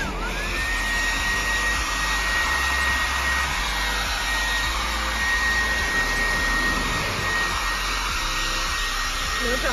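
Handheld Revlon hair dryer running steadily, blowing onto a wet dog's coat: a constant rush of air with a steady high whine.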